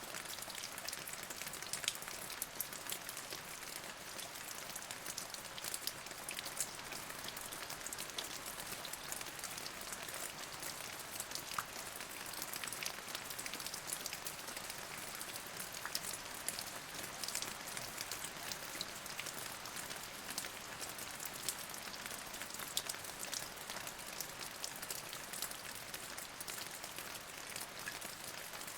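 Steady rain falling, a constant hiss with many separate drops ticking sharply on a nearby surface.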